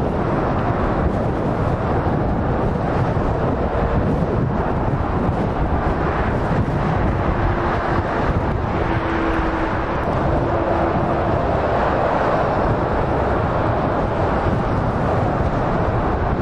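Steady motorway traffic noise: the tyres and engines of lorries and cars passing at speed, with a faint held whine for a few seconds near the middle.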